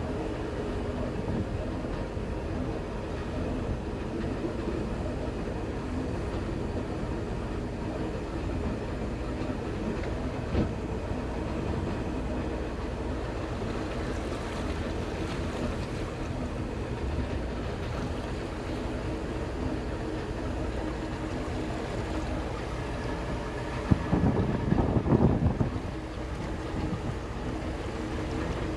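Motorboat engine running steadily, with a constant hum and water noise. There is a brief louder rush of noise about 24 seconds in.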